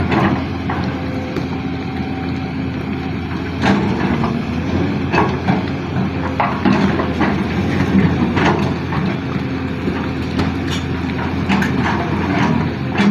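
Excavator's diesel engine running steadily, with a dozen or so sharp knocks and clatters at irregular intervals.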